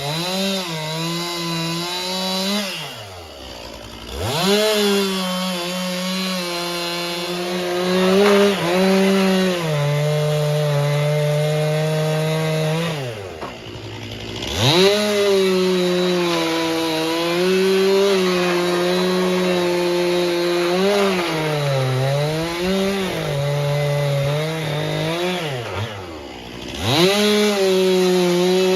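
Chainsaw running at high revs, its pitch sagging as it bogs under load in the cut. Three times it drops to idle and revs back up.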